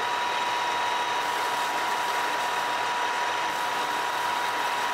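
Milling machine spindle running steadily with a drill bit while drilling rivet holes in an aluminium plate: an even hiss with a steady high whine.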